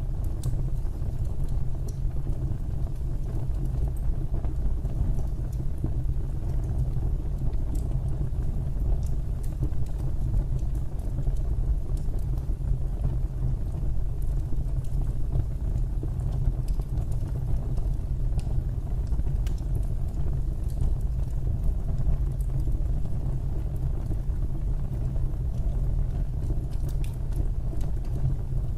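Fire burning in a fireplace: a steady low rumble of flames with scattered faint crackles and pops.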